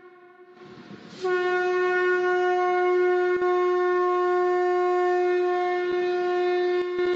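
Conch shell trumpet blown. The tail of one blast fades out, a short breathy rush follows, and about a second in a new long blast begins on one steady held note. It is blown as a night-time call to keep evil spirits away.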